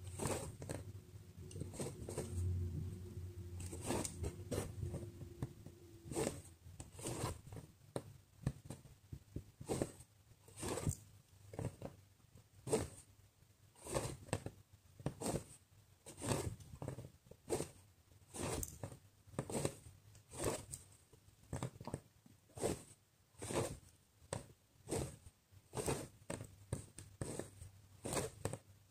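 Needle and embroidery floss being pushed and drawn through cross-stitch fabric, one short pull of thread after another, about once a second. A low steady hum with a faint held tone sits under the first six seconds and then stops.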